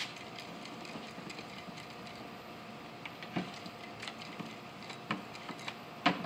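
Light, scattered clicks and knocks of cooking utensils as rotis are rolled out and turned on a griddle, over a steady low hiss. The sharpest knock comes near the end.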